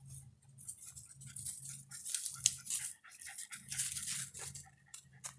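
Close, scratchy rustling and crackling of dry leaves and debris being handled, in quick irregular scrapes.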